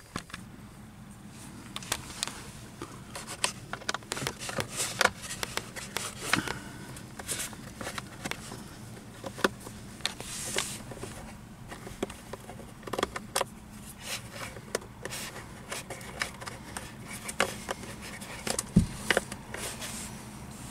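Irregular small clicks, taps and scrapes of hands and a screwdriver working on a plastic car instrument cluster and its dashboard housing, as its Torx screw is undone and the cluster is worked loose. A louder knock comes near the end.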